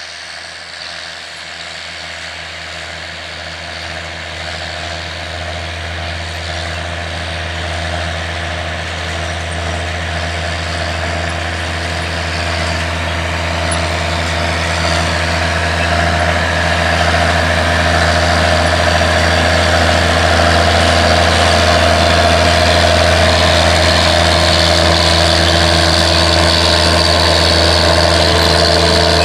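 Diesel engine of a John Deere four-wheel-drive articulated tractor running steadily under load while pulling a corn planter. It grows steadily louder as the tractor approaches and passes close by.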